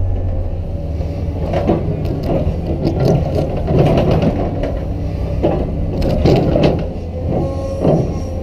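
Cat 320DL excavator's diesel engine running steadily under load while its ripper tooth tears into hard, rocky ground. Irregular crunching and cracking of breaking rock starts about a second and a half in.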